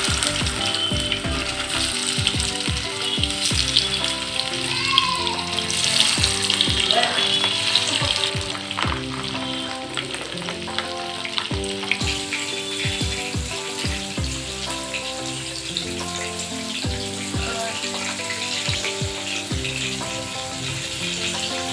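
Marinated fish pieces sizzling as they shallow-fry in hot groundnut oil in a non-stick kadai, with scattered knocks as the pieces are laid in and moved about.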